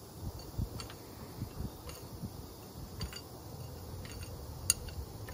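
Light metallic clinks and ticks of steel pushrods being drawn out of a John Deere 2010 engine's cylinder head and handled, with one sharper click near the end.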